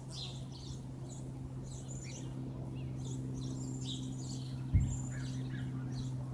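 Songbirds chirping and calling over a steady low hum, with one sharp thump a little under five seconds in.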